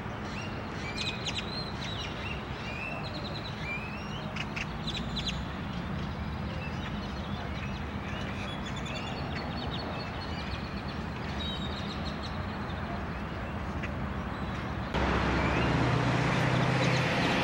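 Birds chirping and calling in short rising whistles over a steady low hum. About fifteen seconds in, a louder, steady rushing noise abruptly sets in.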